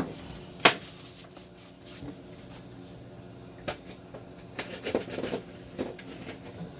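Handling noise from a cable being picked over by hand: one sharp click about a second in, then a few softer clicks and rustles, over a steady low hum.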